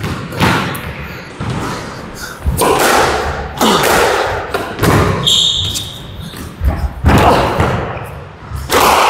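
Squash rally: the ball is struck by rackets and smacks off the court walls, a string of sharp echoing hits every second or so. A short high squeak comes about five seconds in.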